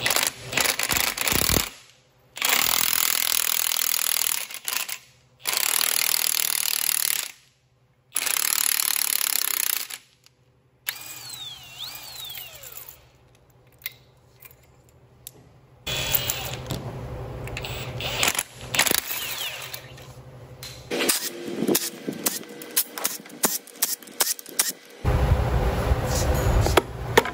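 Cordless 24-volt impact wrench hammering in four bursts of about two seconds each, driving a puller that draws the harmonic balancer off the LS engine's crankshaft. Quieter clicks and metal clatter follow.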